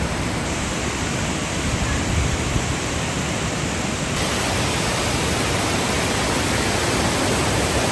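Waterfall's steady rushing roar of falling water, getting slightly brighter and louder about halfway through.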